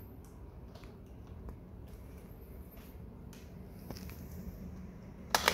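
Faint scattered clicks and taps of a plastic toy car being handled on a tile floor by a baby monkey, with one sharp, much louder knock near the end.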